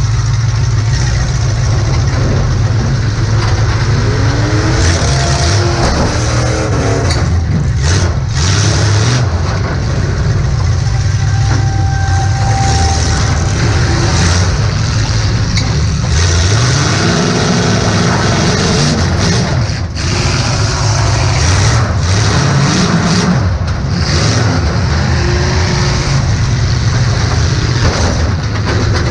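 Demolition derby car's engine running loud, heard from inside the car, revving up twice with rising pitch. There are several sharp bangs, typical of the car hitting or being hit.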